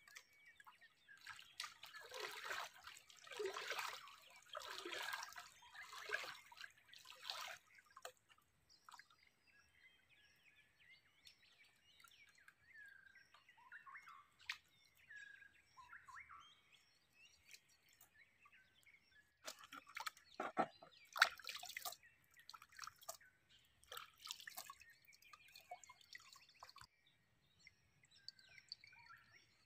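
Quiet camp ambience: scattered water drips and faint bird chirps, with several seconds of louder noisy rustling near the start and a cluster of sharp clicks past the middle.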